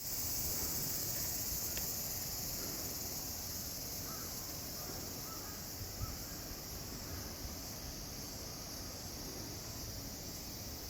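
Steady high-pitched chorus of insects, with a few faint chirps and a brief soft thump about six seconds in.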